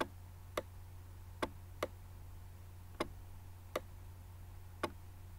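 Sharp single clicks, about seven, at uneven intervals over a steady low electrical hum.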